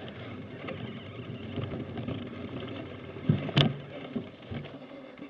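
Mountain bike rolling slowly over a dirt forest trail: steady tyre rumble and rattle of the bike, with a few knocks and one sharp click a little over three seconds in.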